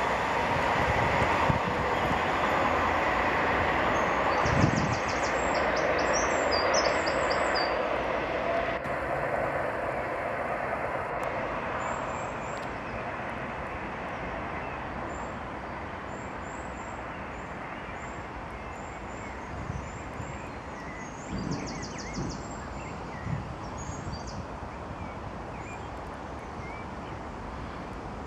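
Class 769 bi-mode multiple unit running on its diesel engines as it pulls away down the line. Its engine and wheel noise fades steadily into the distance. Birds chirp over it.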